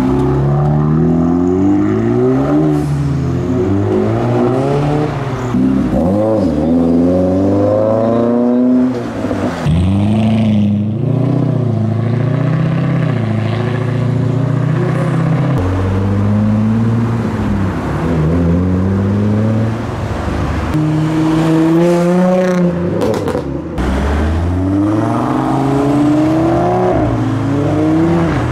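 Several cars accelerating away in turn, their engine notes climbing and dropping back with each gear change as they pass by.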